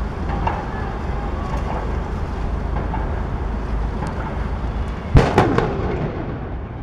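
A cannon aboard the Götheborg fires one very loud bang about five seconds in, followed by a rumbling, echoing tail that fades over the next second or so. Wind buffets the microphone before the shot.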